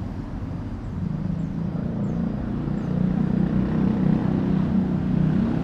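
Passing road traffic: a motor vehicle's engine running with a low hum that grows steadily louder as it approaches.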